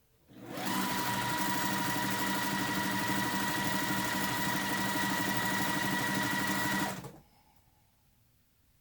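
Electric sewing machine stitching a seam: it speeds up over the first second, runs steadily with a whine and a fast stitching rhythm, then stops about seven seconds in.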